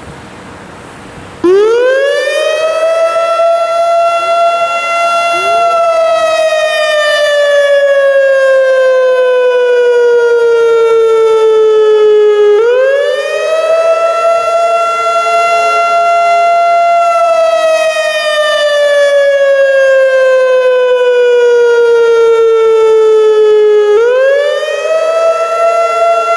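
Whelen WPS-2750 electronic outdoor warning siren sounding the wail/attack signal for a hazardous-material warning. It cuts in abruptly about a second and a half in. Each cycle rises quickly to a steady high tone, holds a few seconds, then slides slowly down, repeating about every eleven seconds.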